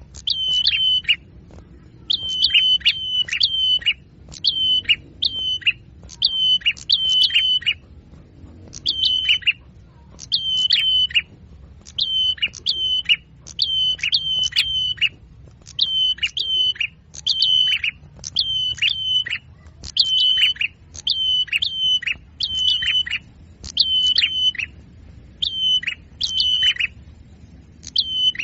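Small songbird calling over and over: short high notes, each held briefly and then dropping sharply, given in quick groups of two or three with short gaps between groups. It is a recorded lure call for attracting small birds.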